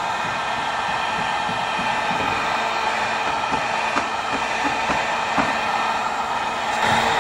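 Electric heat gun running steadily, its fan blowing hot air onto a styrofoam strip, with a constant motor hum. It gets a little louder near the end.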